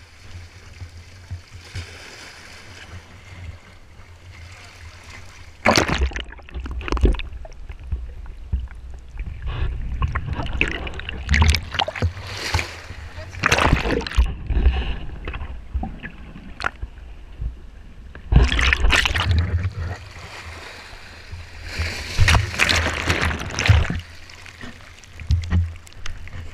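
Sea water surging and splashing over the rocks and around the camera, with several loud bursts of rushing, bubbling water as the camera goes under and comes back out.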